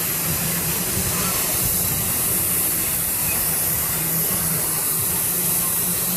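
Steady rushing hiss of flowing water from a water-park slide, with a low steady hum underneath.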